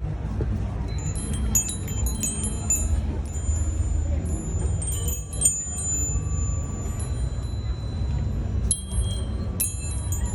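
Furin, a Japanese wind chime, ringing in clusters of light, high strikes that jingle and ring on. The strikes come in groups about a second in, around the middle and near the end, over a steady low rumble.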